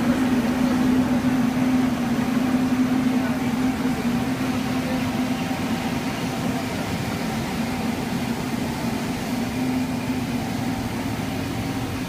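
Steady hum of a rubber hose extrusion line's machinery, with a constant low tone over an even hiss, easing slightly in level toward the end.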